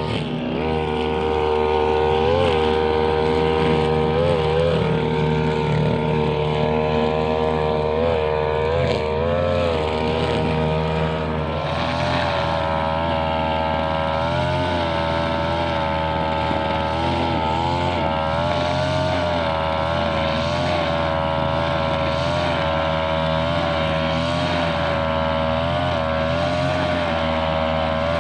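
Small two-stroke brushcutter engine running at high speed, its pitch dipping briefly again and again as the cutting head meets grass. The pitch settles slightly lower about eleven seconds in.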